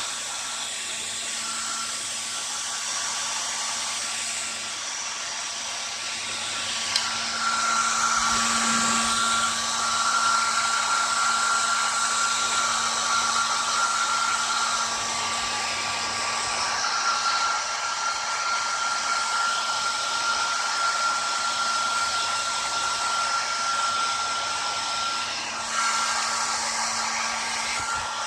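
Hand-held hair dryer blowing steadily on a dog's coat after a shampoo: a steady rush of air with a high whine. It gets louder about seven seconds in and dips briefly near the end.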